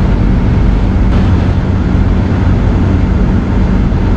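Hurricane-force wind blowing hard across the microphone, a loud, steady rumbling rush with no let-up, with one brief click about a second in.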